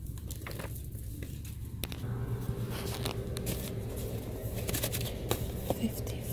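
Paper gift bags rustling and crinkling as a hand flips through them, with scattered light clicks and taps; a low steady hum comes in about two seconds in.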